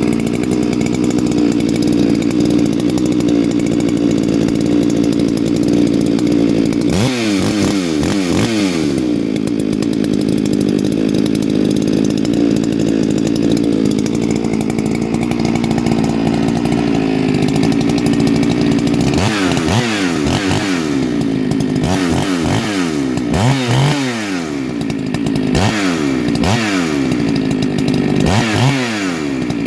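Farmertec G395XP big-bore two-stroke chainsaw, fitted with a homemade muffler, running steadily. It is revved up and back down once about seven seconds in, then blipped about five times in quick succession in the last ten seconds.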